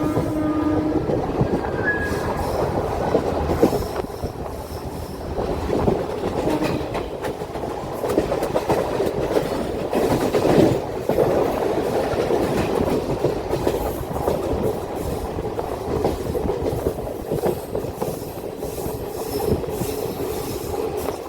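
Passenger train running, a steady rumble with the wheels clattering over the rail joints. The WAP7 electric locomotive's horn is sounding as it begins and cuts off about a second in.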